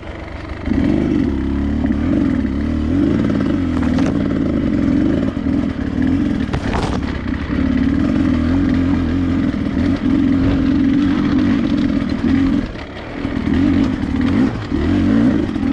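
Dirt bike engine running steadily under load on a climb, easing off briefly near the end and then pulling again.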